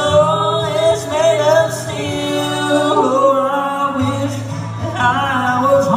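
Live bluegrass song: a man singing over strummed acoustic guitar, with a fiddle playing along.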